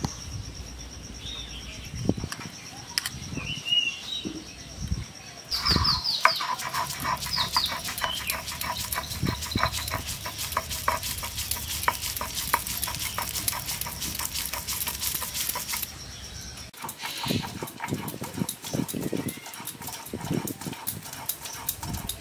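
Stone roller grinding soaked moong dal on a flat stone slab (shil-nora): gritty stone-on-stone scraping and knocking, a few scattered knocks at first, then a dense, rapid run of strokes from about a quarter of the way in to about three-quarters, then slower thuds.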